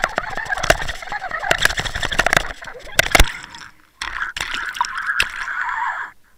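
Water rushing and sloshing around an underwater camera as the fishing rig is pulled through the water, with many sharp knocks and clicks against the housing, the loudest just after three seconds. A brief lull comes near the middle, then a steadier water hiss as the camera reaches the bubbly surface.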